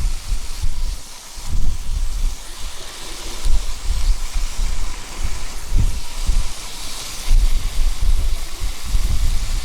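Gusty wind buffeting the microphone in irregular low rumbles, over a steady hiss.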